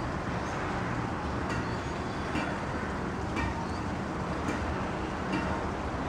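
Steady hum of distant road traffic, with short high chirps about once a second over it.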